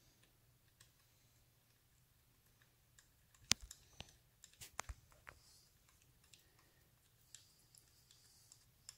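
A few sharp clicks and light taps of small metal parts and screws being handled while fitting the float bowl screws of a motorcycle carburetor. The clicks bunch together from about three and a half to five and a half seconds in, the first the loudest, with only faint ticks around them.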